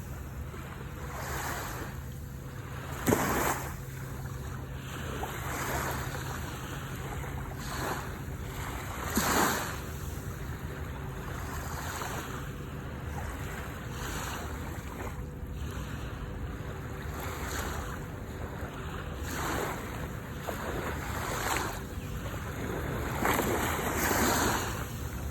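Sea waves breaking and washing in over a steady low rumble, with louder surges of surf about three and nine seconds in and again near the end.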